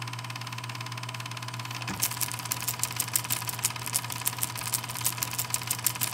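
A steady low hum, joined about two seconds in by rapid, irregular sharp clicking, several clicks a second.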